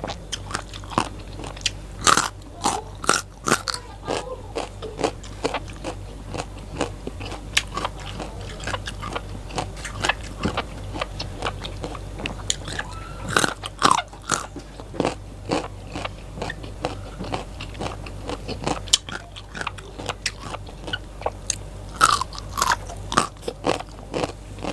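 A person biting and chewing crisp raw vegetables close to the microphone, a run of sharp, irregular crunches with a few louder bites.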